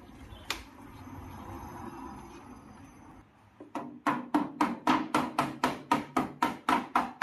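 Rapid knocking, about four strikes a second through the last three seconds, after a single click and some scraping: the refrigerator's back cover being pried and knocked loose.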